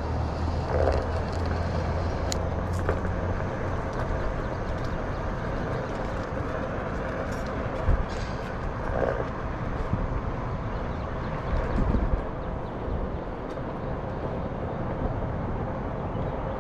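City street ambience: a steady wash of traffic and outdoor noise, with a low hum that fades after about two seconds and a few dull thumps.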